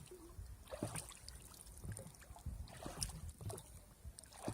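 Faint water lapping and knocking against a sailboat's hull, with scattered small clicks over a low rumble.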